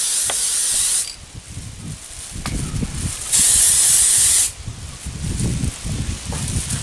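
Aerosol can of Citadel spray primer hissing in two short bursts: the first stops about a second in, the second lasts about a second near the middle.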